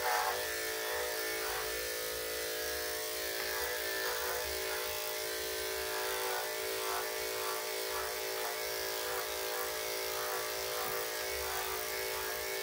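Electric dog grooming clippers running with a steady buzz as they shave down a Cocker Spaniel's freshly bathed coat.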